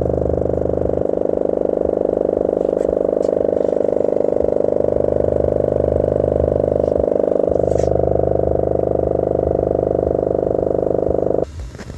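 Sound Town Ares 10-inch subwoofer playing a steady low bass tone at large cone excursion, heard as a loud drone with many overtones. It cuts off suddenly near the end.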